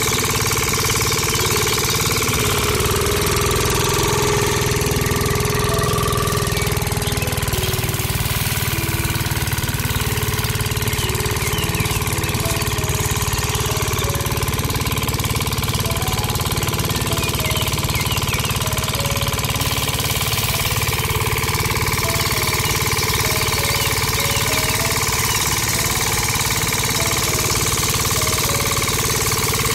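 A small engine running steadily, at an even level with no break or change.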